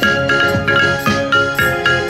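A set of metal cooking pots struck with wooden sticks and played as a pitched instrument, ringing out in a quick run of notes, several strikes a second, with a steelpan-like sound.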